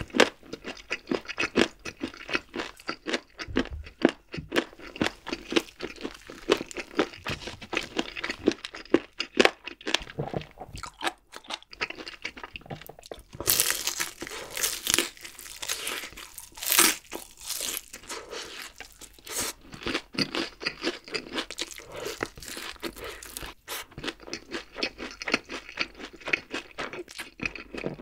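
Close-miked crunching and chewing of crispy, sweet-glazed fried chicken, a steady run of sharp crunches. About halfway through comes a louder stretch of crunches as a fresh piece is bitten into.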